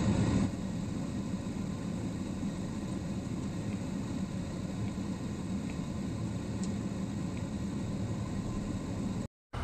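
Brush pile burning: a steady rushing noise with a few faint, scattered crackles.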